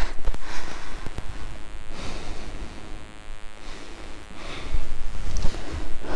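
A person breathing hard, a breath every second or two, over low wind rumble on the microphone.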